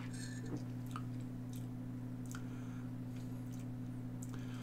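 Faint wet lip smacks and tongue clicks of a man tasting a sip of hot tea, scattered over a steady low hum.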